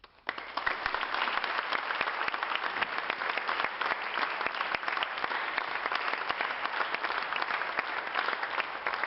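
Audience applauding at the end of a saxophone and piano piece, starting suddenly just after the last note has died away and continuing steadily.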